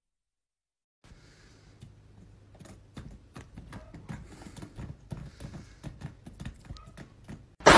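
Irregular plastic clicks and knocks, a few a second and growing louder, as a cat bites and paws at a wall light switch. A loud burst of noise cuts in just before the end.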